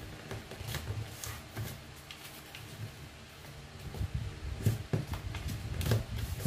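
A sheet of paper rustling and being pressed flat and creased by hands on a wooden tabletop: scattered short scrapes and soft taps, busier and a little louder from about four seconds in.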